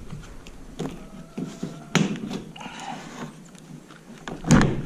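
Metal knocking and scraping as a school bus's emergency roof hatch is pried and worked loose with a chisel: scattered clicks, a sharp knock about two seconds in and a louder one near the end.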